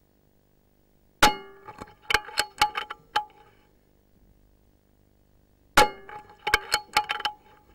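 Metal being struck in two bouts of clanging. Each bout is one loud ringing clang followed by four or five lighter ringing knocks over about two seconds. The first bout comes about a second in, the second near the end.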